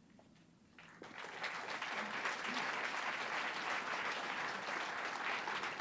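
Audience applauding, starting about a second in and quickly swelling to steady clapping.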